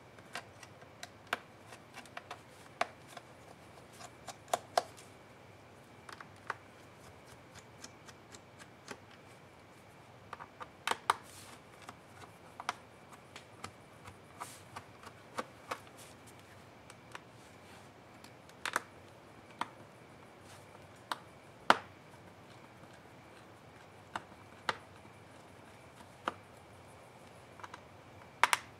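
Scattered sharp clicks and taps of hands and small tools on a Lenovo Yoga 710 laptop's bottom case, irregular, with a few much louder knocks, the loudest about three-quarters of the way in. Near the end a pry tool works at the case edge.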